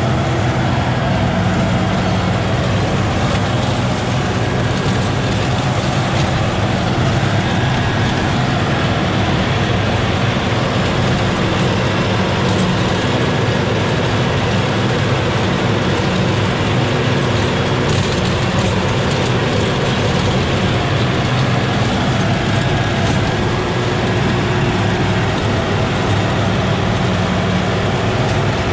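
LS compact tractor's diesel engine running steadily under load, driving a Sicma PTO rototiller through the soil.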